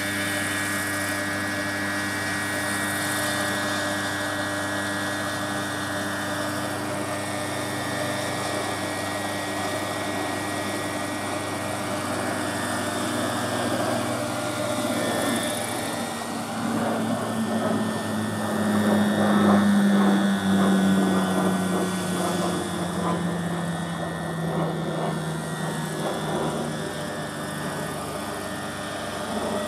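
Large radio-controlled scale model Sea King helicopter running steadily as it lifts off and hovers low, its motor and rotor making a mix of steady tones. It gets louder about two-thirds in, with one tone rising and then falling in pitch.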